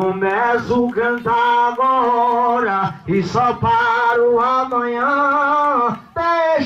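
A man singing a slow melody, holding long notes with short breaks between phrases.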